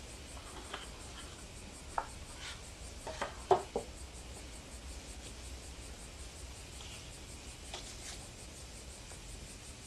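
Light knocks and rubs of a cylindrical case being handled and set down on a wooden table: one knock about two seconds in, then a quick cluster of three about a second later, and only faint handling sounds after that.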